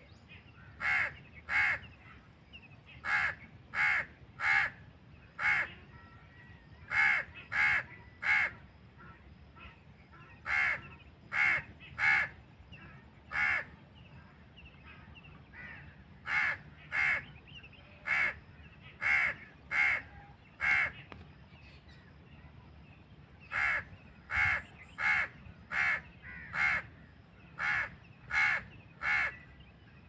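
A crow cawing over and over, harsh short caws mostly in quick runs of two to four with brief pauses between the runs.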